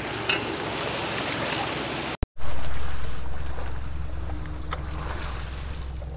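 Wind and water noise around a small boat, then, after an abrupt cut about two seconds in, a steady low engine hum that is loudest at first and slowly eases off, with a few faint clicks.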